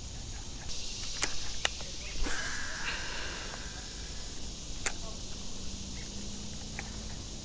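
Insects buzzing steadily in summer vegetation, with a few sharp clicks scattered through, the loudest about five seconds in.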